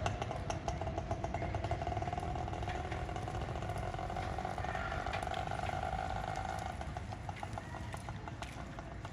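A small engine running, with a rapid even ticking at first, then a steady drone that fades about seven seconds in.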